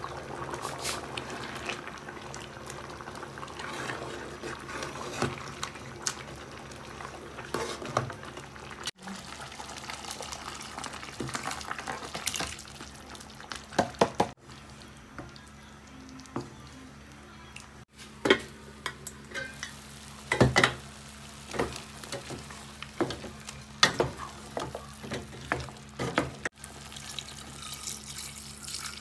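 Cooking at a large aluminium stew pot: a metal spoon stirring and scraping through thick stew, with many short clinks of utensils against the pot. Ingredients tipped in and water poured into the pot near the end.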